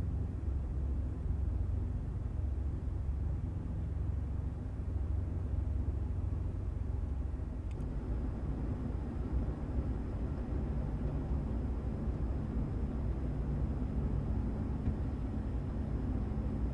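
Steady low rumble of outdoor background noise. About eight seconds in, a short click, after which a faint high whine continues.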